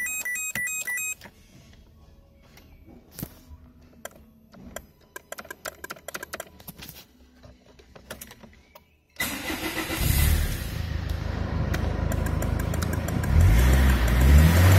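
Peugeot 406's 2.0 HDi DW10ATED four-cylinder turbodiesel being started. Faint clicks and ticks sound with the ignition on, then the engine cranks and catches about nine seconds in and runs with diesel clatter. It is revved, rising in pitch, near the end. A short electronic beeping pattern comes first.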